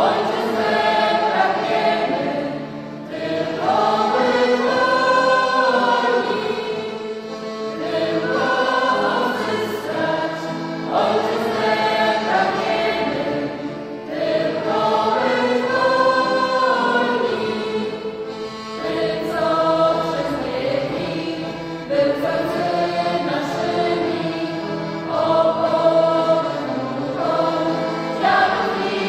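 A folk vocal ensemble singing a song together, several voices in phrases a few seconds long.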